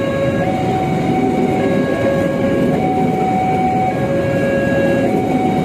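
Passenger train carriages rolling past at very close range, a loud steady rumble of wheels on rails. Over it a level crossing warning alarm sounds two alternating tones, switching about once a second.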